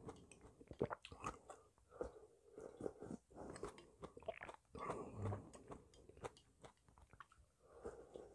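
Close-miked mouth sounds of a man eating noodle soup: chewing with irregular wet clicks and smacks, and near the end sipping broth from the tilted bowl.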